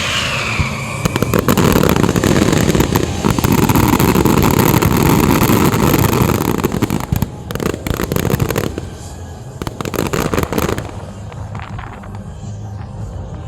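Fireworks going off: a falling whistle, then a dense barrage of crackling bangs for about six seconds, thinning to a few scattered bangs before dying down near the end.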